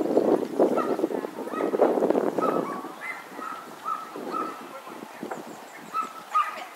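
A loud rough noise for the first couple of seconds, then a series of about ten short, high animal calls, a pause, and two more near the end.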